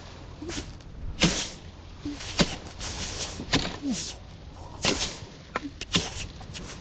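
About eight sharp cracks or snaps, spaced irregularly, with a few short low calls between them; no engine is running.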